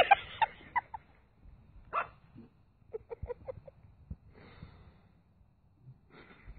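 Small puppy yapping in short, high yips. A quick run comes at the start, the loudest part, another yip about two seconds in, and a run of about five yips around three seconds in. Two fainter short rasping sounds follow later.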